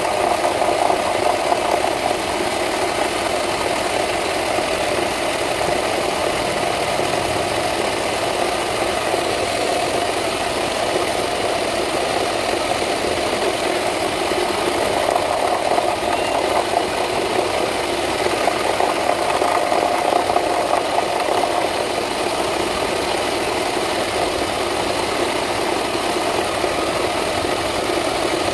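Wood lathe running steadily, a constant mid-pitched machine hum with some rattle while the workpiece spins.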